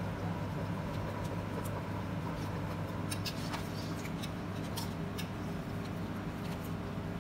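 A metal utensil clinks against a stainless steel pot several times as boiled cabbage leaves are lifted out, over a steady low hum.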